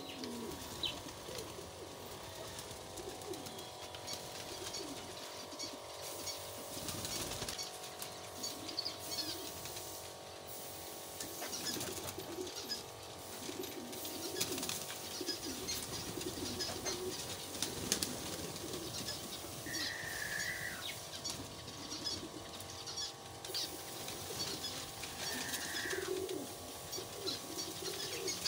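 Domestic pigeons cooing over and over, with now and then a flutter of wings as birds released from their cages flap about on the ground.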